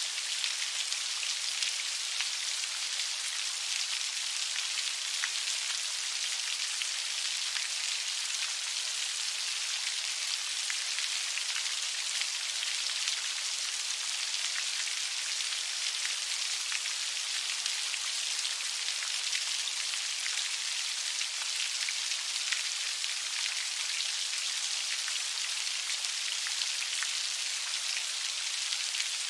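Heavy rain falling steadily, an even high hiss of many small drops with no thunder or low rumble.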